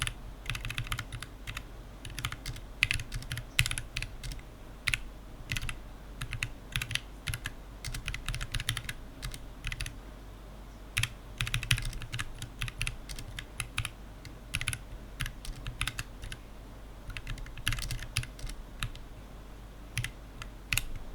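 Computer keyboard being typed on fast, in quick runs of keystroke clicks broken by brief pauses of about a second.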